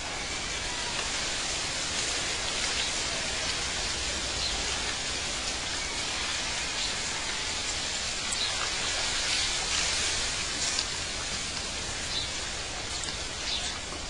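Outdoor nature ambience: a steady, even rushing hiss, with faint short high chirps now and then.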